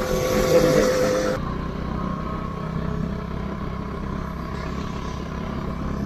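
Motor scooter running at cruising speed on a wet road: a steady engine hum with tyre and air noise. About a second and a half in the sound changes abruptly, the hiss dropping away and leaving a lower, steady drone.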